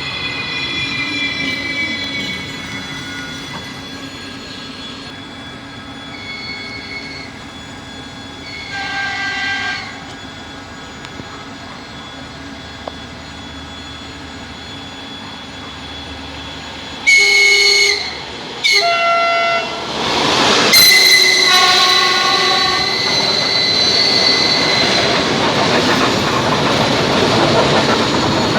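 Two electric trains meeting: a falling whine as one slows, then horn blasts, fainter ones at first and then several loud ones a little past the middle, followed by the steady rolling noise of a train running past.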